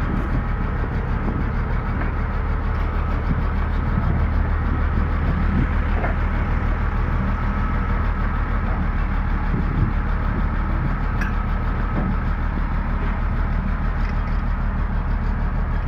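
Komatsu bulldozer's diesel engine running steadily, with a thin steady whine above the rumble.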